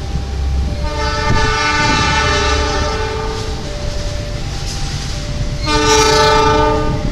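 Train horn sounding a multi-note chord: a long blast starting about a second in, fainter held notes after it, then a second loud blast near the end.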